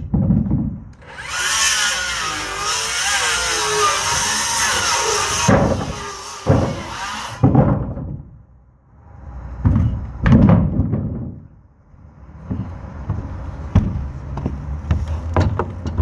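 Handheld cordless power tool running hard on wooden blocks for about six seconds, its pitch wavering as it bogs under load, with sharp knocks of wood near the end of the run. Shorter bursts and knocks of wood follow later.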